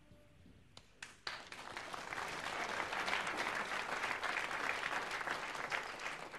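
Audience applauding: a few scattered claps about a second in, swelling into dense, steady applause that starts to thin out near the end.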